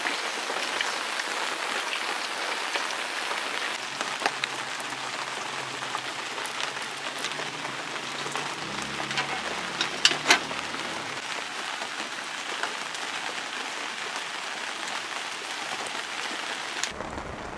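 Steady rain falling and pattering on surfaces, with a few sharp clicks about ten seconds in.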